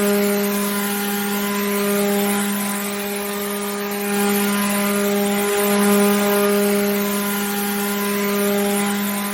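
Electric water pump motor running steadily: a constant hum with a hiss over it, its level swelling and easing slightly every couple of seconds.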